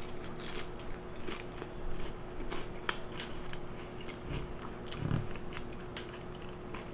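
Biting into and chewing a McDonald's apple pie: a scatter of small, sharp crunches from its crisp pastry crust.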